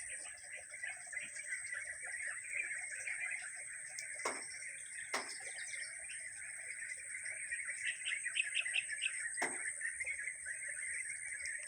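Many small birds chirping continuously in a dense chatter. A few calls fall steeply in pitch, and a quick run of short higher notes comes near the end, over a steady high-pitched whine.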